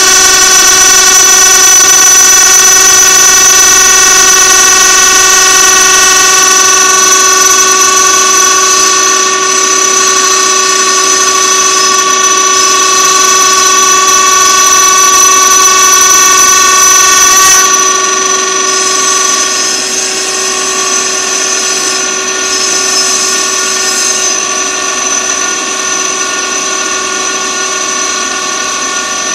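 CNC stone carving router's spindle cutting a stone sculpture turned on a rotary axis: a loud, steady whine of several held tones over the grinding of the cutter in stone. It eases slightly a little past halfway.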